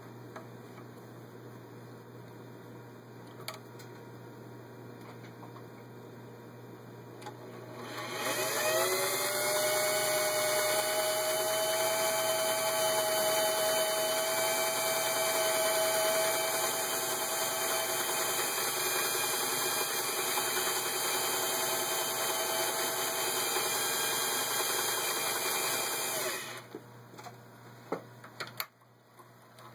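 Singer 503A sewing machine running under its motor: it spins up, rising in pitch, about eight seconds in, sews steadily for some eighteen seconds while stitching the arrowhead cam pattern, then stops. A few light mechanical clicks follow near the end.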